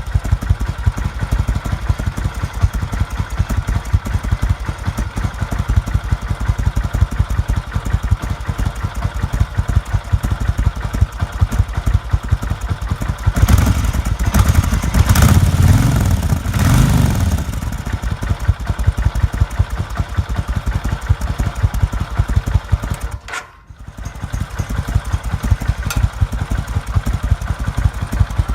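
Kawasaki VN 1500 cruiser's V-twin engine on its stock exhaust, idling with an even, loping pulse. About halfway through it is revved several times, rising and falling, then settles back to idle.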